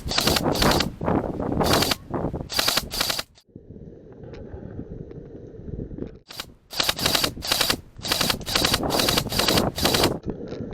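Airsoft guns firing short full-auto bursts in quick succession. There are about three seconds of bursts, a lull of about three seconds, then more bursts for about three and a half seconds.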